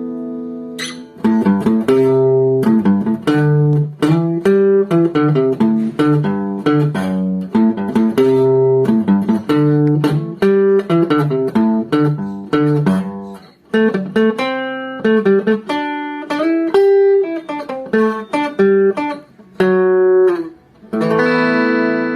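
Acoustic guitar played as a run of single plucked notes, with a ringing chord at the start and another struck about a second before the end.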